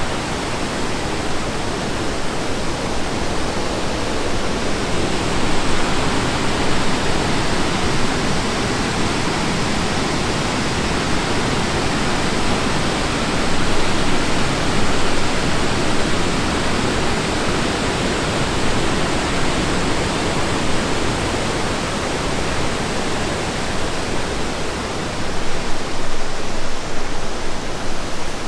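Rushing whitewater of the Tallulah River pouring through the gorge: a loud, steady rush that swells slightly near the end.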